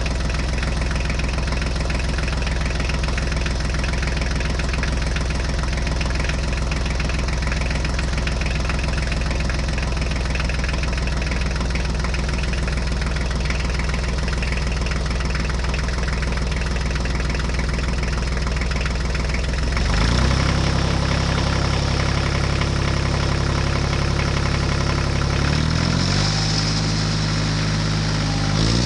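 Diesel tractor engine running steadily at a low idle, then picking up speed about two-thirds of the way through and changing speed again near the end.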